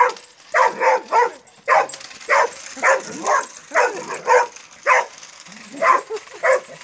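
A dog barking excitedly at a small remote-control car: a dozen or so short barks, about two a second, in quick runs with brief gaps.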